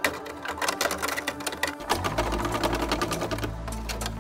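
Rapid, irregular tapping and clattering of a hand tool working at the rusted steel floor pan of a Suzuki LJ80. A low steady hum comes in about two seconds in.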